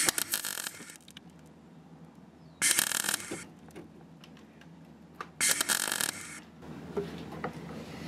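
MIG welder laying three short tack welds on a galvanized steel repair panel, each about a second long and a couple of seconds apart. The tacks fix the patch in place before it is fully welded.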